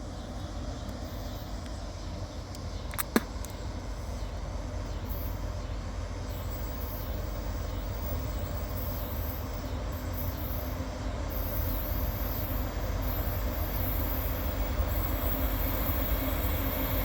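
Loaded coal train with a couple of diesel locomotives approaching: a steady low rumble that slowly grows louder. A single sharp click comes about three seconds in.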